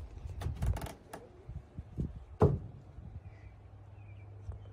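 Several quick clicks and knocks, then one loud thump about two and a half seconds in: handling noise.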